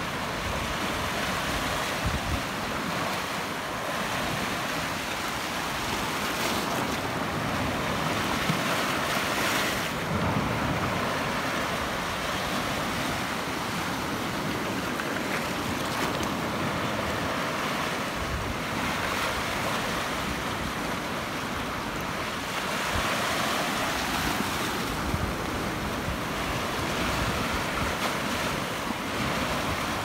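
Small sea waves washing in over a flat rocky shore and draining back through the foam: a steady hissing wash that swells twice, about a third of the way in and again near the end.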